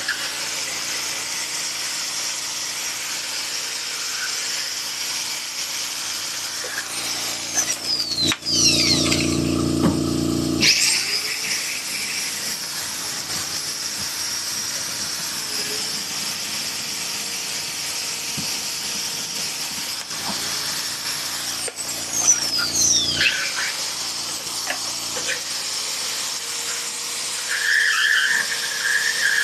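Air compressor motor running while a pneumatic rotary tool whines at high speed, its pitch dropping as the tool spins down several times. The compressor's drone stops about two-thirds of the way through.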